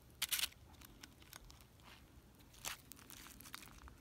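Faint crackling and crunching as a toasted low-carb tortilla quesadilla is handled and its top tortilla peeled up, with a few short crackles, the loudest just after the start and another near the three-quarter mark.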